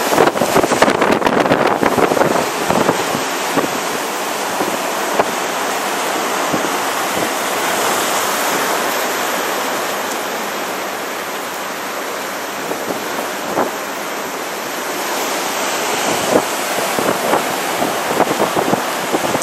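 Heavy hurricane-driven storm surf breaking continuously, with strong wind buffeting the microphone in gusts, strongest at the start and again near the end.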